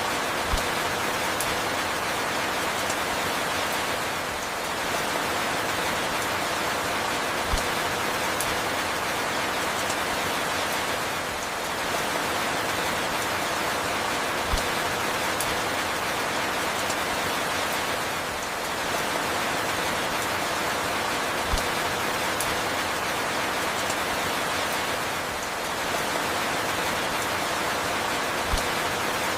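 Steady falling rain, an even hiss, with a short soft low thump about every seven seconds.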